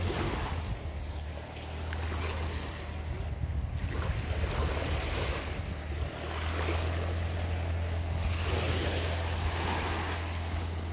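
Small waves washing onto a sandy beach, swelling and fading every couple of seconds, over a steady low hum.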